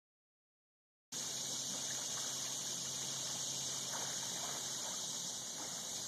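Silence for about a second, then a steady high hiss of open-air lake ambience with faint splashing of water from a swimmer.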